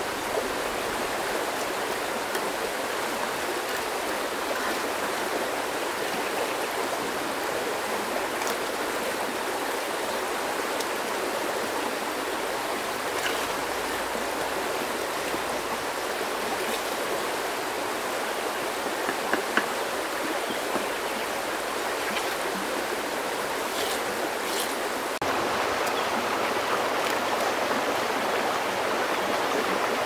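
Steady rush of a small creek's flowing water, with a few faint taps; the rush steps up a little louder about 25 seconds in.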